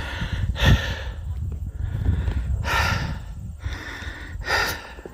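A man breathing hard and loud, winded from climbing a steep trail: three heavy breaths about two seconds apart.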